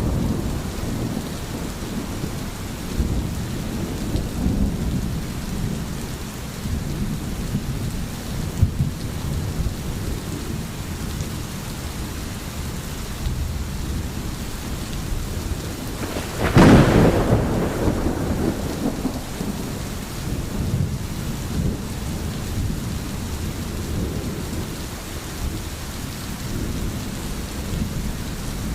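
Steady rain with continuous low rolling thunder. About sixteen seconds in, a sharp thunderclap cracks, the loudest moment, and rumbles away over the next few seconds.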